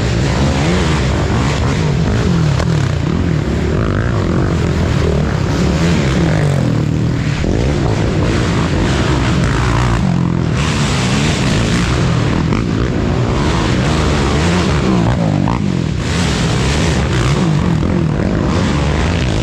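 Racing ATV engines running hard and revving up and down without pause, their pitch rising and falling as the quads accelerate and shift.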